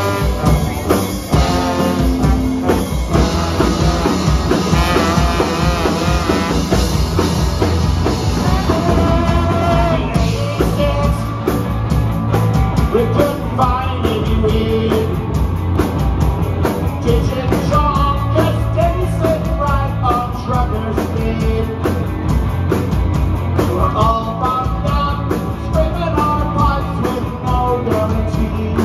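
Live punk rock band playing a loud, driving song on electric guitars, drum kit and trombone.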